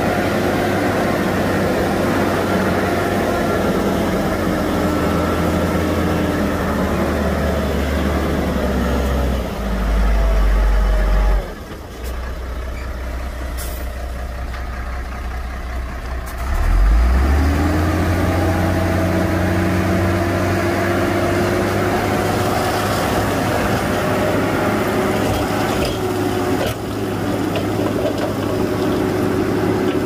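Shantui bulldozer's diesel engine working under load, its pitch sagging, then cutting back suddenly to a lower speed a little before halfway. About five seconds later it revs back up and runs steady again.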